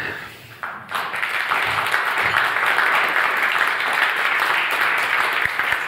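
Audience applauding: the clapping breaks out about a second in and carries on at a steady level.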